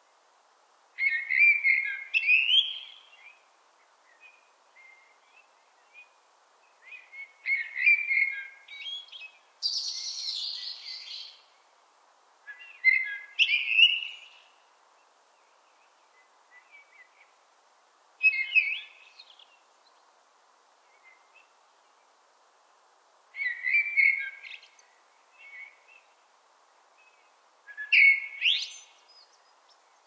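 Common blackbird singing: six fluty, warbling phrases a few seconds apart, each ending in higher twittering notes. About ten seconds in there is a brief higher, hissy sound.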